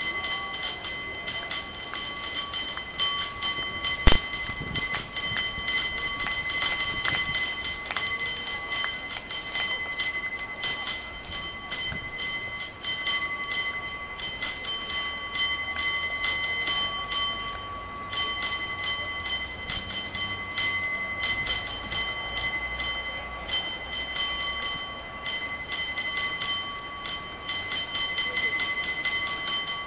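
San Francisco cable car bell rung in a fast, rhythmic run of rapid strikes, its ringing tone hanging on between them. There is one sharper, louder knock about four seconds in and a brief pause about eighteen seconds in.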